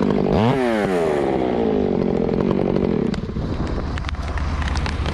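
Chainsaw running at full throttle, briefly let off and revved back up about half a second in, then dropping to a low, rough idle about three seconds in.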